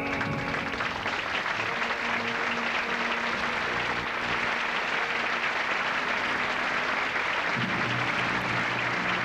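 A theatre audience applauding steadily at the end of a musical number.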